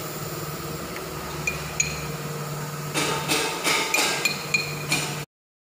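Metal being tapped with a hammer: sharp, ringing clinks, a couple in the first two seconds and a quick run of them from about three seconds in, over a steady low hum. The sound cuts off abruptly just after five seconds.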